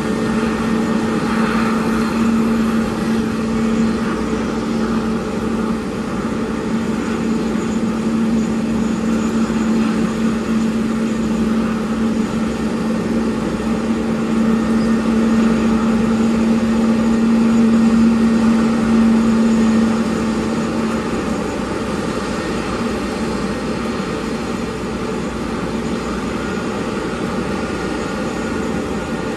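Steady jet aircraft noise on an airport apron: a broad rush with a steady hum that stops about two-thirds of the way through.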